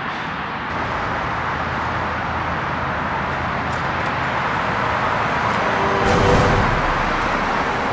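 Road traffic noise: a steady rush of passing cars, swelling as a car goes by about six seconds in.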